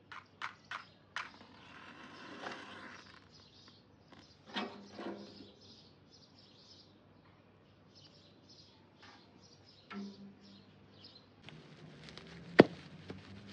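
Small birds chirping in short, repeated calls, with a few light clicks and knocks early on and one sharp knock near the end.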